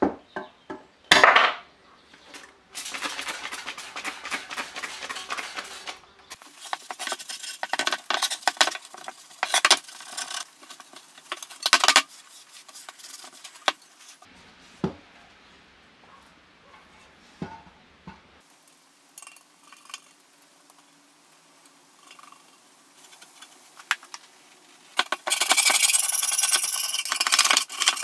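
Hand tools working on a tiller's painted sheet-metal engine cover: a pointed metal tool scraping and picking at dirt, with clicks and knocks of metal on the wooden bench. Near the end, a steady, loud scraping as a metal scraper strips paint softened by paint stripper.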